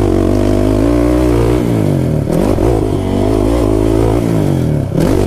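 Kawasaki KFX 450R quad's single-cylinder four-stroke engine revving up and easing off again and again as the throttle is worked, the pitch climbing and falling several times.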